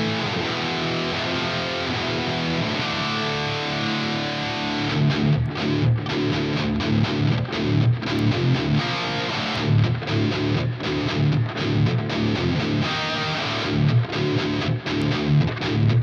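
Les Paul electric guitar played through a Bogner amp head with distorted tone. Held, ringing notes give way about five seconds in to choppy, rhythmic riffing with short, sudden stops between phrases.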